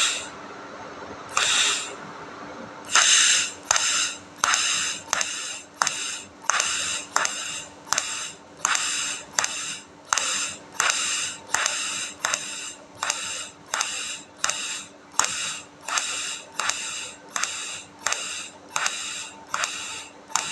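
Electric welding arc struck in short, evenly repeated bursts of crackling hiss, about one and a half a second, as in stitch or tack welding, over a steady low hum.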